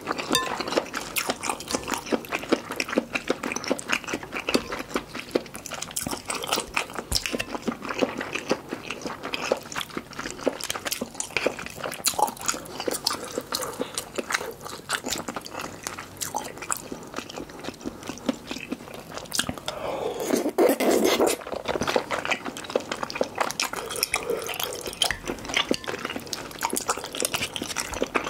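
Close-miked eating of malatang noodle soup: wet chewing and slurping with many small mouth clicks, and soft taps of the spoon and chopsticks. There is a longer, louder stretch about two-thirds of the way through.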